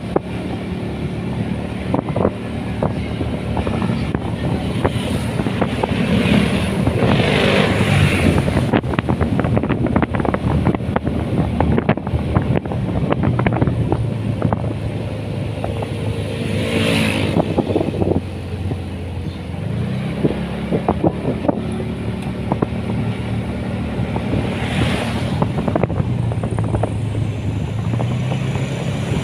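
Motorcycle engine running while riding at road speed, with wind buffeting the microphone. The engine note eases off about two-thirds of the way through, then picks up again.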